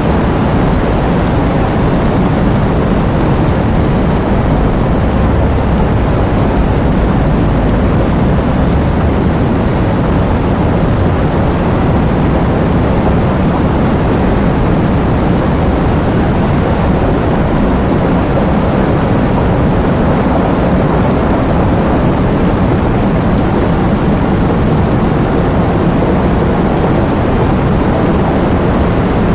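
Heavy rain with strong wind, a steady, dense roar with a deep rumble underneath.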